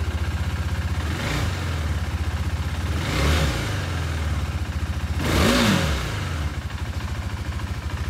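KTM Duke 390's single-cylinder four-stroke engine idling with a fast, even pulse, blipped three times on the throttle, the biggest rev about five and a half seconds in.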